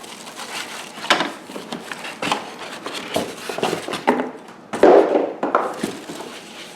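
Vacuum parts and packaging being lifted out of a box and set down: a run of light knocks and clicks of hard plastic, with a louder rustle of packaging about five seconds in.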